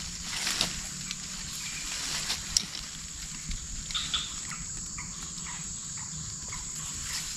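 Rural outdoor ambience: a steady high-pitched insect drone, with scattered light clicks and taps from handling and a few short chirps in the second half.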